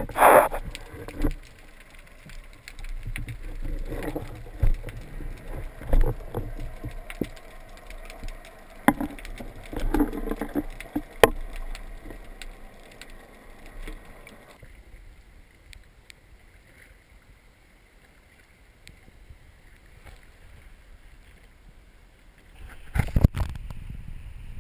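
Water sloshing and splashing with scattered sharp knocks, going quieter about fifteen seconds in, then a short louder burst of splashing near the end.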